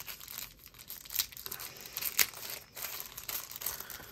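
Thin plastic wrapper crinkling as it is peeled off a coin by hand: irregular crackles, with sharper snaps about one and two seconds in.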